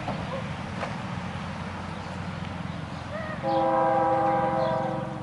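Locomotive air horn sounding one steady multi-note chord, starting about three and a half seconds in and lasting nearly two seconds, over a low steady rumble.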